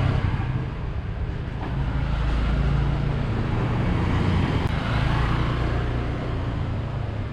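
Motor scooter engines and street traffic running close by, with a scooter passing about four seconds in.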